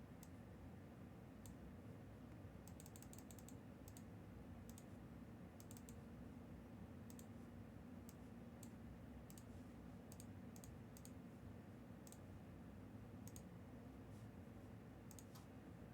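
Faint computer keyboard typing and clicking: scattered light clicks, some in quick little runs, over a steady low room hum.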